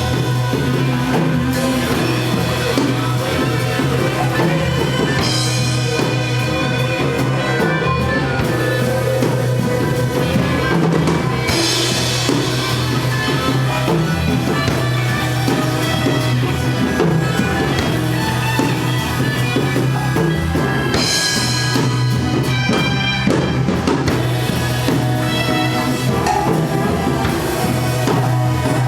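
Live psychedelic rock band playing an instrumental passage, with drum kit, cymbal crashes at several points and a steady bass.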